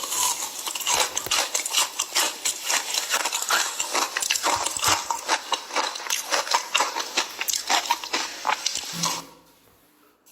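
Ice being chewed close to the microphone: a fast, dense run of crackling crunches that stops about nine seconds in.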